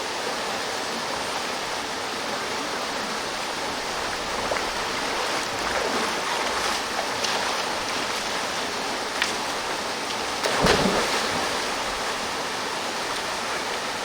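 Steady rush of a waterfall pouring into a valley pool. A few short sharp sounds cut through it, the loudest about ten and a half seconds in.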